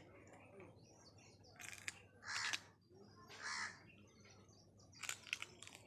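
A crow cawing twice, each call a harsh half-second note, with a few short, crisp crunches of teeth biting into a raw cucumber before and after.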